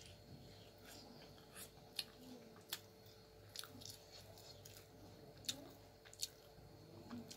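Faint chewing of soft uthappa dipped in coconut chutney, with a handful of short, sharp wet mouth clicks.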